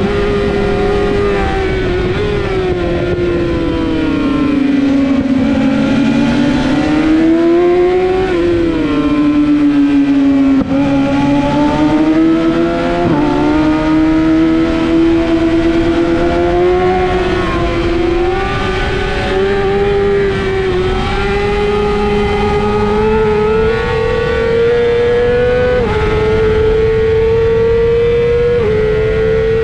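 A 600cc supersport motorcycle's inline-four engine revving hard. Its pitch dips twice as it slows for corners, then climbs steadily with small steps as it accelerates.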